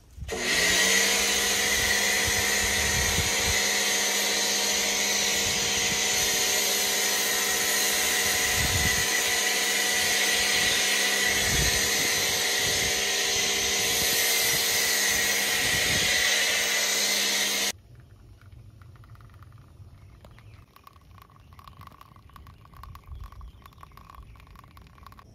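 Pressure washer running, a steady motor-and-pump hum under the hiss of the water spray, then shutting off suddenly about eighteen seconds in.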